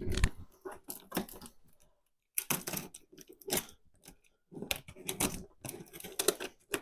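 Cardboard shipping box being handled: irregular taps, scrapes and rustles, with brief pauses about two and four seconds in.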